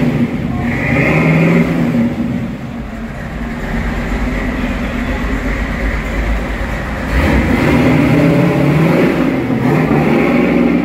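Shelby GT500 'Eleanor' replica Mustang's V8 engine running as the car drives through a concrete car park. It swells twice: about a second in, and again from about seven seconds as the car passes close, with a lower steady rumble between.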